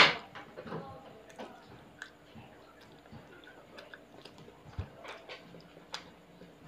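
A person chewing quietly: faint scattered clicks and mouth sounds, with a soft low thump a little before five seconds and two sharper ticks near the end.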